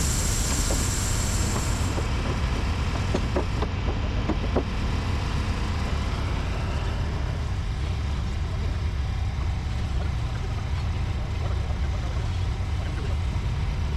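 An engine running steadily with a low rumble. A high hiss stops about two seconds in, and a few short knocks come between about three and five seconds in.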